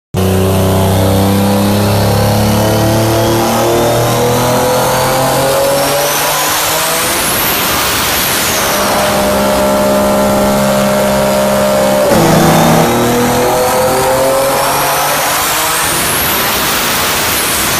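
Heavily modified Nissan GT-R (R35) twin-turbo V6 at full throttle on a chassis dynamometer: the engine revs climb with a rising high whine that peaks about eight seconds in, falls back, then climbs again in a second pull near the end.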